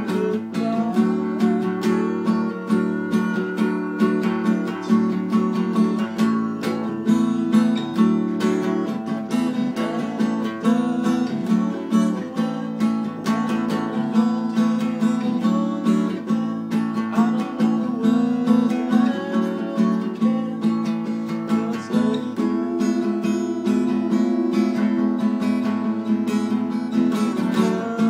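Acoustic guitar strummed in a steady rhythm, playing chords of a song.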